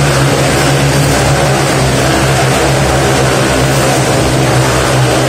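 Several motorcycles circling inside a steel-mesh globe of death, their engines running together in a loud, steady drone.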